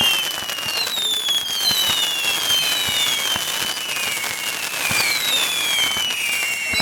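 Whistling fireworks going off overhead: several overlapping whistles, each falling in pitch over a second or so, over a steady high crackle, with a few sharp pops.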